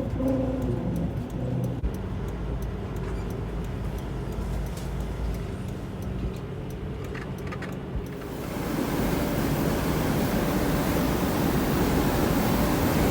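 Semi truck on the move: its diesel engine runs low and steady, and about eight seconds in a louder, even rushing of road and wind noise sets in.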